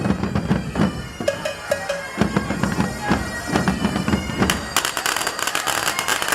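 Music led by bagpipes over a drum beat; about three-quarters of the way through it turns denser and brighter.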